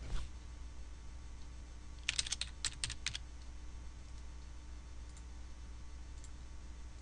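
Typing on a computer keyboard: a quick run of about ten keystrokes about two seconds in, entering a login name and password, after a single click at the start. A low steady hum runs underneath.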